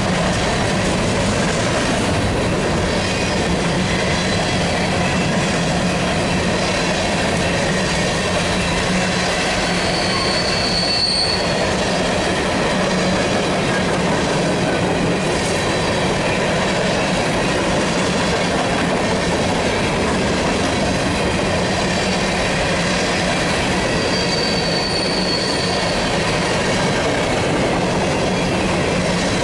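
Covered hopper cars of a freight grain train rolling past on steel rails, a steady loud rolling noise of wheels on track. Two brief high-pitched wheel squeals cut through it, one about ten seconds in and another later on.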